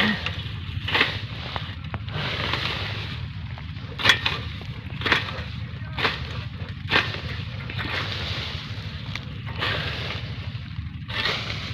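A long-handled grass-cutting blade swung repeatedly through thick fodder grass: sharp swishes and chops of stalks, roughly one a second, with longer rustling passes between them. A steady low rumble runs underneath.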